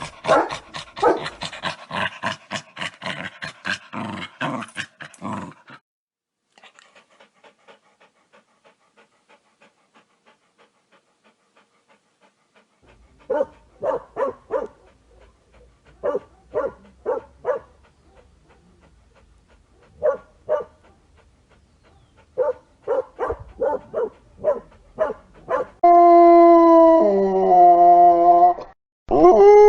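Dog sounds in a series: fast panting for about five seconds, then fainter panting, then short barks in quick groups, and near the end a long howl that steps down in pitch, with a second howl starting just after it.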